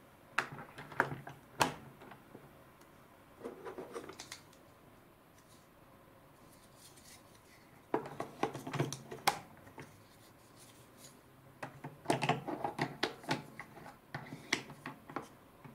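Hard plastic parts of a toy sushi machine clicking and knocking as white rollers and mould pieces are fitted onto its pegs. The clicks come in four clusters, the last one the longest.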